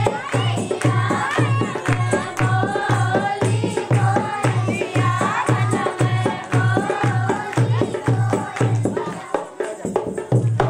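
Dehati nach geet, a rural Indian folk dance song: a singing voice over a steady heavy drum beat of about two strokes a second, which cuts off at the end.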